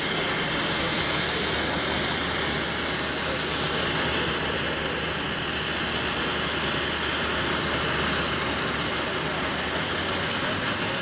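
Airbus A319-100 jet engines running steadily at taxi power: an even rush with a faint high whine.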